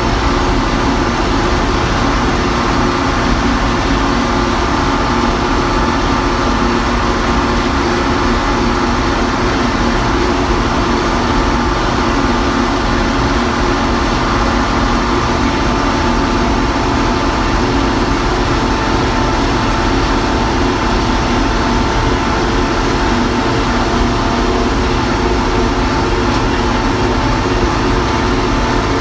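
Allis-Chalmers 210 tractor's six-cylinder diesel engine running steadily at an even speed.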